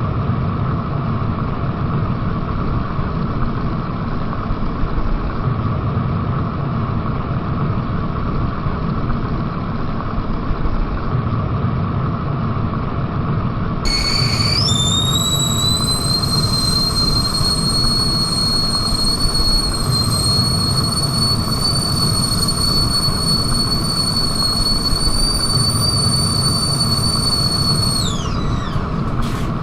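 Stovetop whistling kettle at the boil: a steady rushing, rumbling water noise, and about halfway through the whistle starts with a short lower note, jumps to a high shrill tone that rises slightly and holds, then glides down and cuts off near the end.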